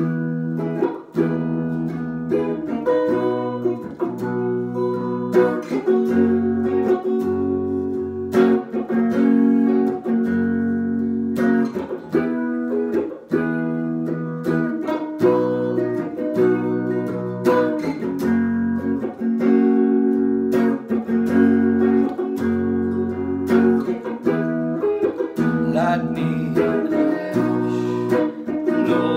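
Epiphone Les Paul electric guitar strummed in a steady rhythm of chords that change every couple of seconds, starting at once.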